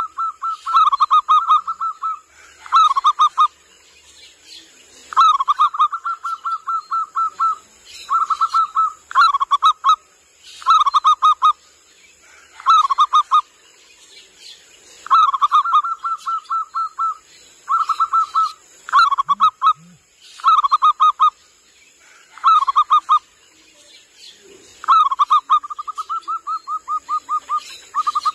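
Zebra dove (perkutut) cooing: repeated phrases of quick, rolling staccato coos, each a second or two long, coming about every two seconds.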